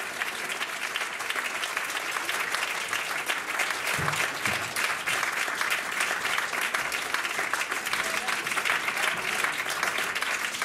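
Concert audience applauding steadily: dense, even clapping.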